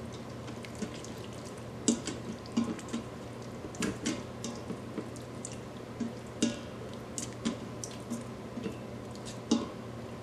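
A spoon stirring wet, oily sautéing ingredients in the Instant Pot's stainless steel inner pot, with irregular soft clicks and wet ticks as it knocks and scrapes the pot, over a faint steady hum.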